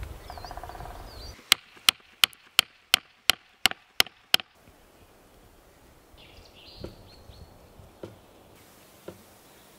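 A carved wooden tap being hammered into a birch trunk with a mallet: nine sharp knocks, about three a second, that stop short.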